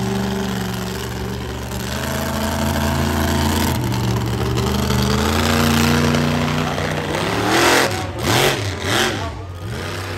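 Monster truck engine revving hard in rising and falling surges as the truck drives at a dirt jump. About three-quarters of the way through come a few loud, sharp bursts with quick up-and-down swings in engine pitch.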